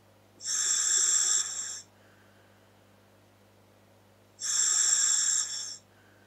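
Breathing through a scuba regulator fitted to a Dräger full-face mask: two long hissing breaths, each about a second and a half, about four seconds apart. A faint steady hum lies underneath.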